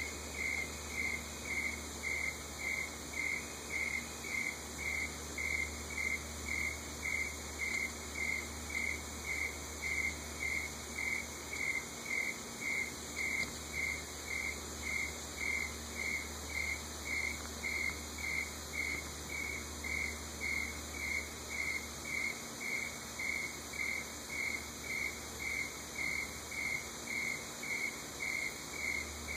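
Insect chirping steadily at night, one short high chirp repeated about one and a half times a second, over a steady high hum of other insects.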